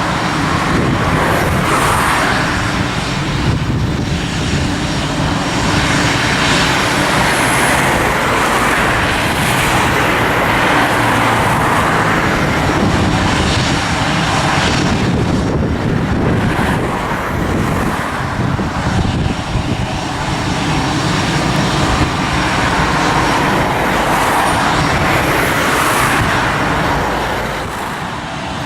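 Loud, steady road traffic noise mixed with jet aircraft engine noise, swelling and easing every few seconds as vehicles pass.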